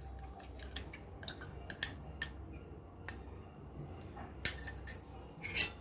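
Light clinks and knocks of a utensil against a pressure cooker pot as cornflour slurry is added to the soup. The clinks are scattered, with the sharpest about three quarters of the way through.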